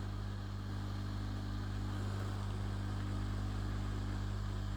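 Hot-air rework station blowing with its airflow turned up, a steady rushing hiss over a constant low hum.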